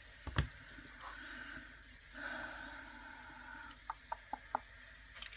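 Small plastic toy being worked loose from its plastic packaging: a sharp knock, a second or so of faint plastic rubbing, then four quick clicks.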